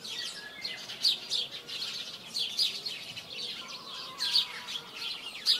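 Small birds chirping in a chorus: many short, high chirps overlapping several times a second.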